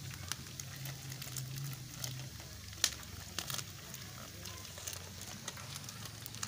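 Wood fire crackling under a cooking pot: irregular sharp pops and snaps, one louder pop about three seconds in, over a low steady hum.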